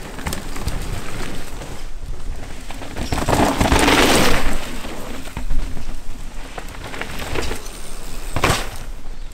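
Mountain bike tyres rolling and skidding on a dirt trail, with a rush of tyre noise as the bike passes close by about four seconds in, and sharp knocks of wheels landing around five and a half seconds in and near the end.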